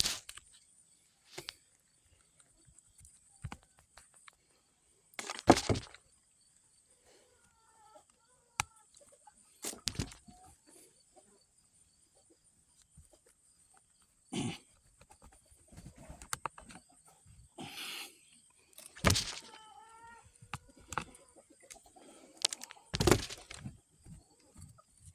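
Scattered rustles and knocks of hands and a tool working in a dug-up plant and soil, with a few short wavering animal calls now and then and a steady thin high insect drone.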